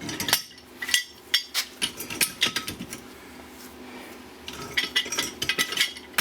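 Metal clinks and knocks as tools and mower deck spindle parts are handled, in irregular clusters with a quieter stretch in the middle.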